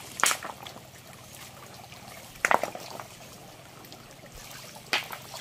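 Water trickling, with three short sharp sounds about two and a half seconds apart, the middle one the loudest.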